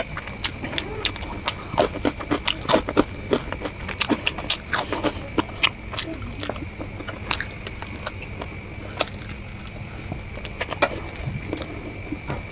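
Close-miked eating sounds as chowmein noodles and a chicken lollipop are chewed: many quick wet clicks and smacks, thick for the first seven seconds or so and then only a few. A steady high-pitched whine runs underneath.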